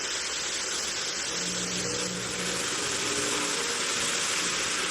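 Steady room hiss with faint low humming tones.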